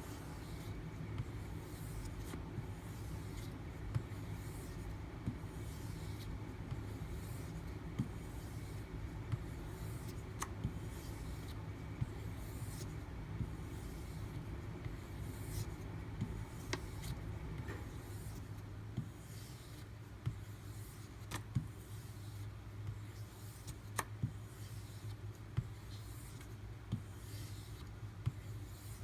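A D2 steel knife blade stroked again and again along a leather strop loaded with 2-micron CBN emulsion, a soft rhythmic rubbing with a swish on each pass. A steady low hum runs beneath.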